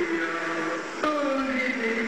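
A male cantor singing Byzantine chant, long held notes that step from pitch to pitch, with a new phrase starting about a second in.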